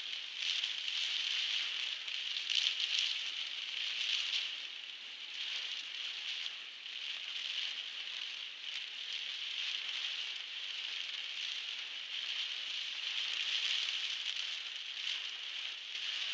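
Heavy rain on a car's windscreen, heard from inside the moving car: a steady hiss of drops that swells and eases a little.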